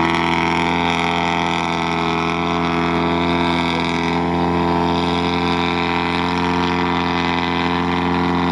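GAZ-63 off-road truck's engine held at high, steady revs as it pulls through deep bog mud, blowing heavy exhaust smoke. The revs fall away at the very end.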